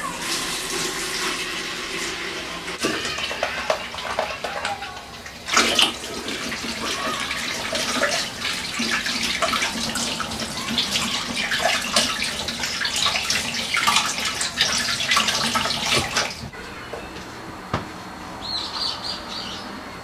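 Kitchen mixer tap running, its stream splashing over hands being washed beneath it. The flow grows louder about five seconds in and is shut off a few seconds before the end.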